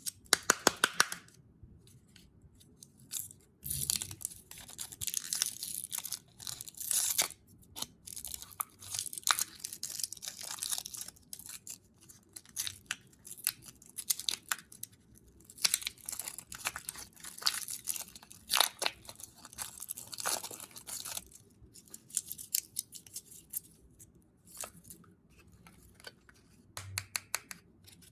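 Candy wrappers being crinkled and torn open, in irregular bursts of crackling with runs of sharp clicks.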